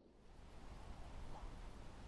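Faint, steady hiss of background noise with no distinct event.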